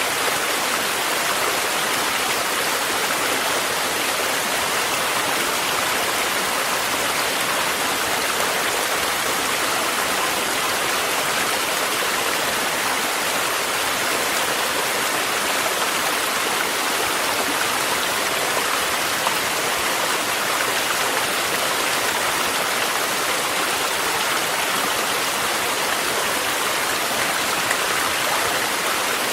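Mountain stream water running steadily, mixed with falling rain.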